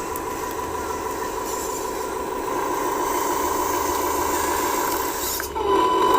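Small electric motors and gears of RC model construction machinery whirring, with scraping as clay is loaded. Near the end a model truck's reversing beeper comes in louder.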